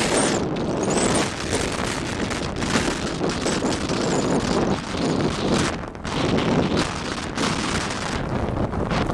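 Strong blizzard wind buffeting the microphone: a loud, gusting rush that rises and falls unevenly.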